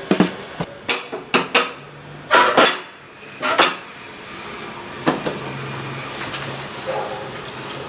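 A series of sharp clinks and knocks, some with a brief metallic ring: several in quick succession over the first two seconds, then a few more spaced out.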